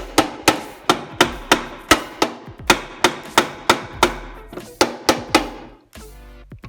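A hammer striking repeatedly, about three sharp blows a second with slightly uneven spacing, stopping shortly before the end.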